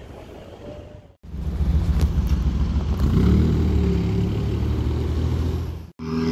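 A sports car's engine pulling away, starting abruptly after about a second of quieter street noise; its note rises as it accelerates, then cuts off sharply near the end, where a different car's engine note begins.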